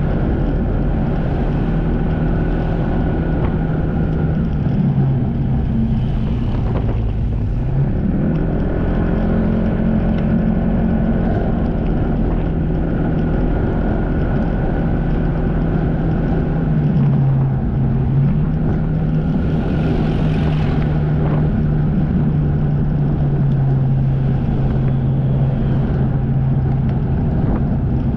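Jet ski engine running under way. Its pitch dips and climbs back several times as the throttle is eased and opened again.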